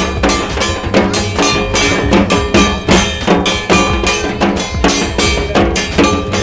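Music with a fast, steady drum beat, about three strokes a second, over a melody and bass.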